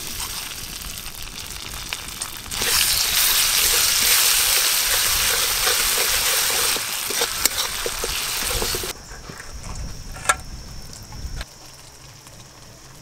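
Ground mustard, poppy seed and green chilli paste sizzling in hot oil in a metal wok as it is stirred with a metal spatula. The sizzle gets much louder about two and a half seconds in, then drops away about nine seconds in, leaving a few sharp clicks.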